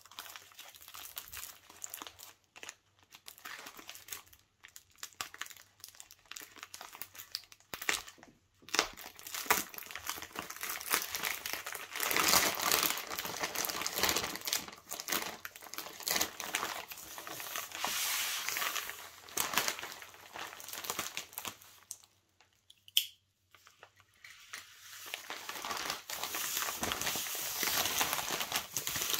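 Thin black plastic sheeting crinkling and rustling as it is pulled open and unwrapped by hand, in irregular bursts with short pauses and a brief lull about three-quarters of the way through.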